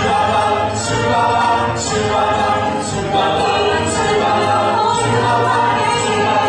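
Group of voices singing together with musical accompaniment, over a steady beat about once a second.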